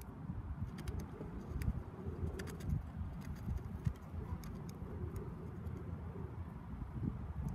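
Wind buffeting the microphone in an uneven low rumble, with faint scattered crackles from a small flame at the edge of a sheet of paper lying on charred wood.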